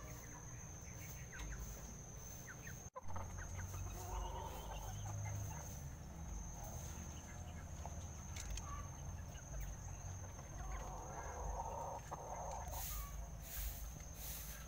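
Chickens clucking faintly, in a couple of soft bouts, over a steady high-pitched whine and a low rumble.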